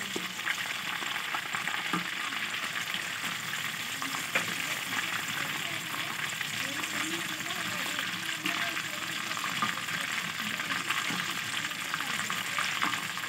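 Coated chicken satay skewers deep-frying in hot oil in a metal kadai: a steady, dense crackling sizzle. A slotted spatula moves through the oil turning the skewers, with a few light knocks against the pan.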